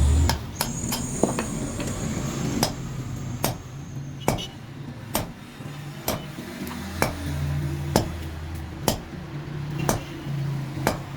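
Hammer blows on metal, single strikes about once a second, over a steady low hum.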